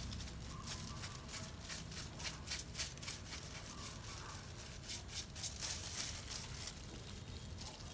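Tint brush stroked again and again through wet goat hair thick with black dye paste: a quick, irregular series of soft scratchy swishes.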